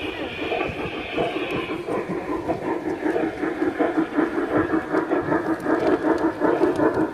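G-scale model steam locomotive running past with its sound unit giving rapid, even chuffs, growing louder as it approaches.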